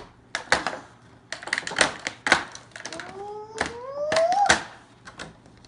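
Small plastic toy pieces and packaging clicking and clattering as they are handled, in a string of sharp separate knocks. About three seconds in, a voice gives a rising, drawn-out exclamation.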